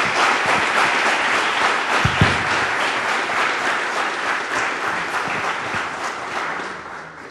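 Audience applauding, a dense round of many hands clapping, with a couple of dull thumps about two seconds in; the applause fades toward the end.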